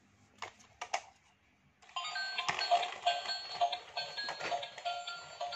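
Two clicks, then about two seconds in a battery-powered light-up toy helicopter switches on and plays a busy electronic tune with a quick, regular beat.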